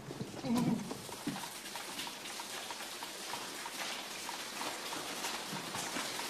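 Footsteps of a group walking over a rock floor: an irregular patter of small knocks over a steady hiss, with a brief low voice-like sound about half a second in.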